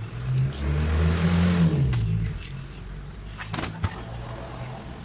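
A motor vehicle's engine swells for about two seconds, its pitch rising and then falling, over a steady low hum. A few sharp clicks follow about three and a half seconds in.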